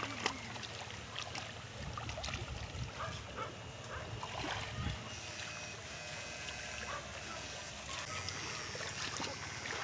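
Water splashing and sloshing as people wade and work nets in a shallow stream, with small scattered clicks over a steady low hum.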